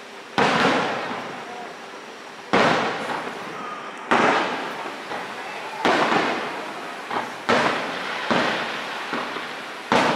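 Aerial firework shells bursting overhead, about eight sharp booms spaced one to two seconds apart, each dying away in a long rolling echo.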